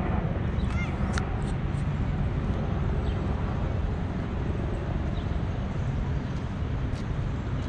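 Outdoor ambience: a steady low rumble throughout, with a few brief high chirps about a second in.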